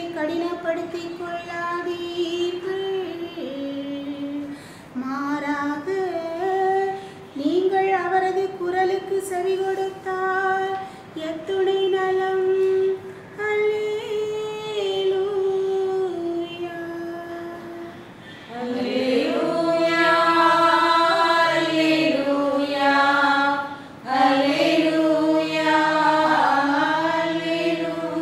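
A woman's voice singing a slow liturgical chant with long held notes. About two-thirds of the way in, the singing grows louder and fuller.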